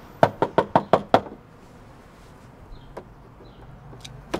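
Knuckles rapping six times in quick succession on a front door, followed near the end by one single sharp click.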